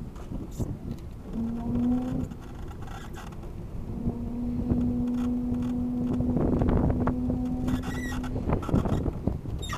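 Electric drive motor of a small one-seat electric vehicle, a 700-watt Chinese e-scooter drive unit, whining at one steady pitch while driving, over a low rumble. The whine comes in briefly about a second and a half in, then holds steady from about four seconds until near the end.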